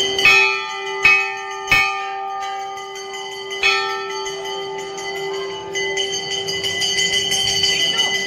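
Hand-rung brass temple bells: a few separate strikes in the first four seconds, each ringing on, then quicker, overlapping ringing from about six seconds in.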